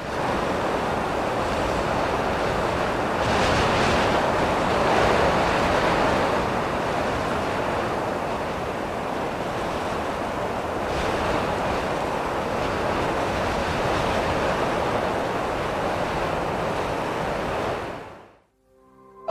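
A steady rushing noise, swelling slightly a few seconds in and again around the middle, then fading out near the end.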